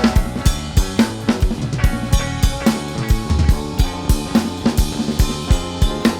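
Live punk rock band playing an instrumental passage: drum kit pounding out a fast, steady beat of kick and snare with cymbals, over bass and guitar.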